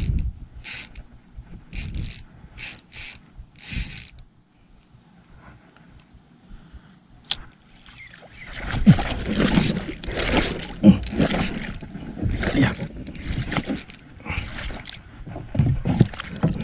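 Fishing reel mechanism winding and clicking in short bursts during the first few seconds. After a quiet gap, a busier stretch of knocks and rustling noise starts about eight seconds in.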